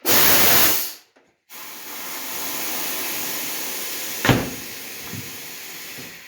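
Air-powered bead breaker on an old tire changer working to break a tire's bead loose from the rim: a loud blast of air in the first second, then a steady hiss of air, with one sharp knock about four seconds in.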